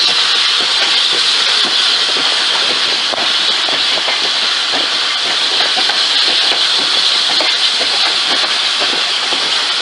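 Flying Scotsman, an LNER A3 steam locomotive, moving slowly with a loud, steady hiss of escaping steam and faint irregular clicks.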